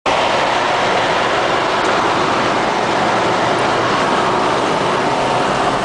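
Vehicles driving through floodwater: a steady rushing noise of wheels churning water and traffic, heard from inside a car.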